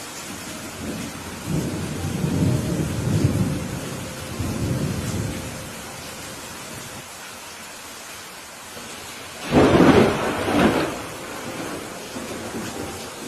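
Steady rain falling under a thunderstorm. A low rolling thunder rumble swells and fades in the first few seconds, then a sharper, louder thunderclap crashes about ten seconds in.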